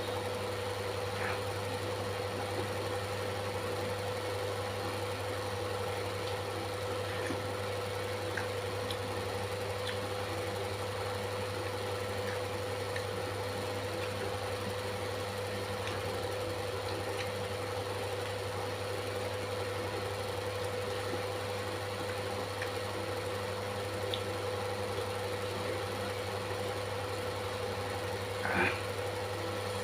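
Steady low mechanical hum with a constant mid-pitched tone, unchanging throughout. It carries faint scattered clicks, and one short, slightly louder sound comes near the end.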